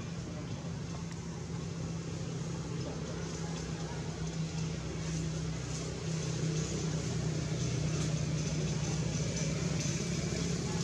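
Steady low engine-like hum, getting a little louder about six seconds in.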